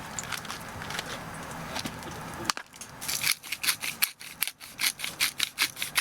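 A hand saw cutting wood in quick, even back-and-forth strokes, about three a second, starting after a steady hiss with a few faint clicks.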